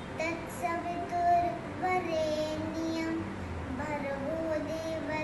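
A child singing a prayer solo, holding long notes and gliding between them.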